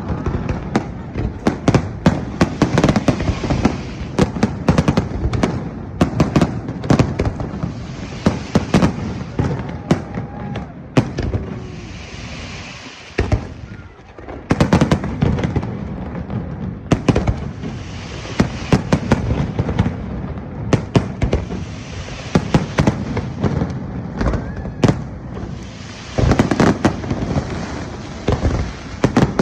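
A fireworks display: a dense, continuous barrage of bangs and crackling bursts, easing briefly about halfway through before building again.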